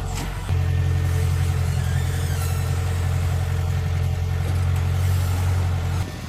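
Excavator engine running steadily as a low, even hum; it comes in abruptly about half a second in and cuts off shortly before the end.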